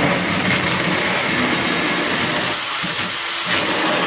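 Ryobi 8-inch electric pruning chainsaw running and cutting through a clamped piece of wood. The chain has been freshly sharpened and its rakers filed down, and it goes through cleanly.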